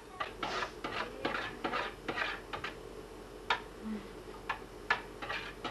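A spoon clinking and scraping against a mug in quick, irregular taps, a few a second.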